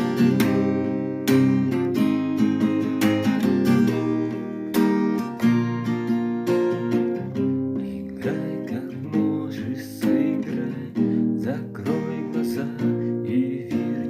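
Acoustic guitar strumming chords in a steady rhythm, an instrumental passage without singing.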